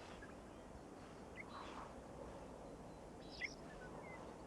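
Faint outdoor ambience with a few scattered short, high bird chirps, the clearest about three and a half seconds in.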